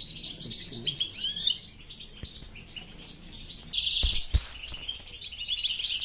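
Several caged finches, European goldfinches among them, chirping and twittering in quick high phrases. The song swells into a dense burst about four seconds in, with two low knocks at that point.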